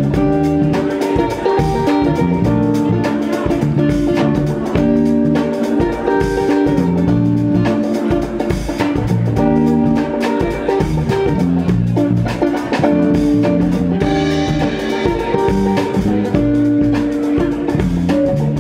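Live band playing a loud instrumental jam: a Jackson electric guitar over a drum kit.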